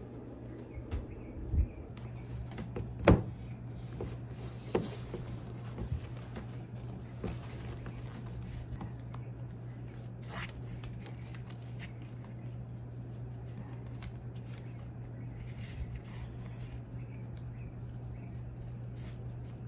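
Steady low hum with scattered light knocks and clicks, the loudest about three seconds in, and a brief hiss about ten seconds in.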